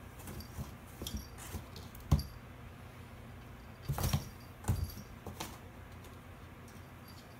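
Two cats play-fighting in and around a cardboard box: scattered sharp taps, knocks and scrabbles of paws batting at the box and its wooden chair, the loudest knock about two seconds in.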